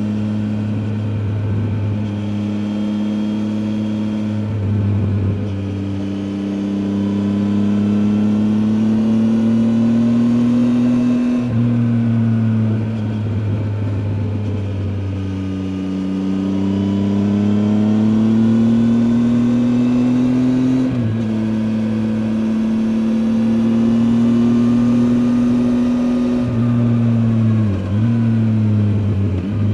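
Triumph Tiger 800 XCA's three-cylinder engine heard onboard while riding: the pitch climbs steadily as it pulls through a gear, then drops sharply at gear changes, about a third and two-thirds of the way in and again near the end.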